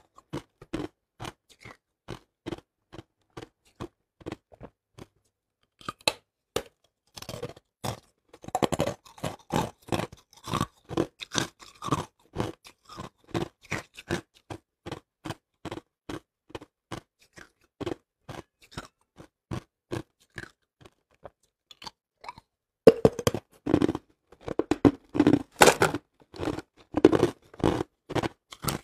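Hard ice being bitten and chewed, a steady run of sharp crunches about two a second, growing louder and denser a few seconds before the end.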